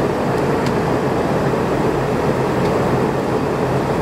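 Steady cabin noise of a Boeing 717-200 in flight: a constant rush of airflow over a low hum from its two rear-mounted Rolls-Royce BR715 turbofans, heard from inside the cabin.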